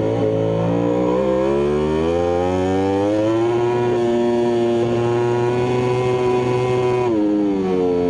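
Yamaha YZR-M1 MotoGP bike's inline-four engine heard from an onboard camera at racing speed. The engine note climbs over the first three seconds as the bike accelerates, holds steady, then drops suddenly about seven seconds in.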